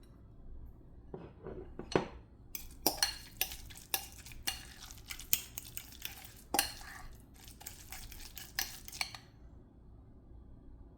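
A utensil clinking and scraping against a bowl in a run of quick, irregular strokes, as when stirring or mixing. It starts about a second in and stops near the end.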